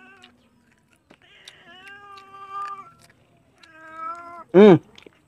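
A hungry domestic cat meowing for food in drawn-out calls, three in all, the second one long. Near the end comes a brief, much louder hum with a rise and fall in pitch.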